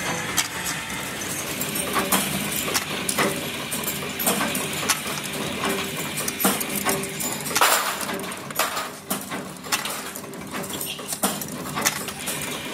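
Stamped steel oil-filter end plates clinking and clanking as they are handled, stacked and set on a steel table: irregular sharp metal clicks, one louder clank a little over halfway through, over a faint steady hum.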